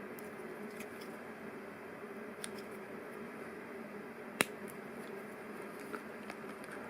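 LEGO Technic pieces being handled and fitted together: scattered small plastic clicks, with one sharper snap about four and a half seconds in, over a steady low background hum.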